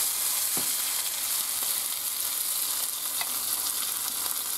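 Mashed potato and cabbage sizzling steadily in a frying pan of hot rendered pork-belly fat as it is scraped in, with a couple of faint taps of the spatula.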